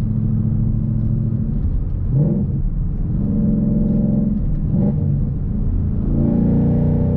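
2015 Mustang GT's 5.0-litre V8 engine running while driving. Its note shifts up and down about two seconds in and again about five seconds in, as the gears of the MT-82 six-speed manual are changed.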